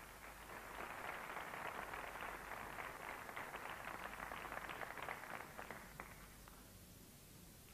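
Audience applauding, a dense patter of many hands that thins and dies away about six seconds in.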